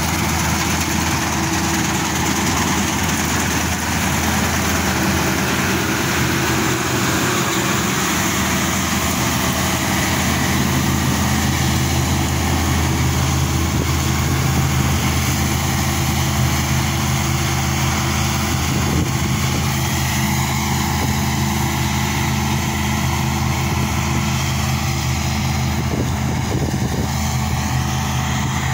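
A vehicle engine running steadily: a constant low hum under even road or wind noise.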